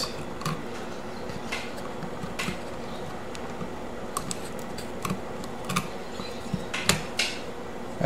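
Scattered small plastic clicks and taps as an old smoke alarm's wiring harness and its wire nuts are handled and pulled free of the electrical box, over a steady low hum.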